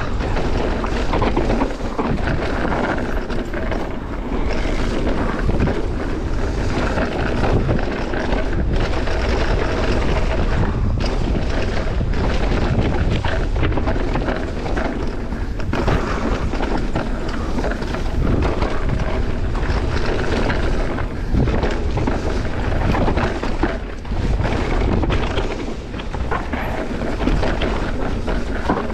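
Mountain bike riding down a rough trail, with wind rushing over the microphone and tyres rolling over dirt and rock. Frequent short clatters and knocks come through as the bike hits bumps.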